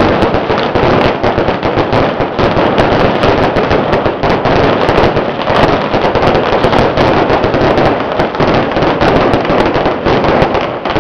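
Strings of firecrackers going off in a loud, dense, continuous crackle of rapid bangs.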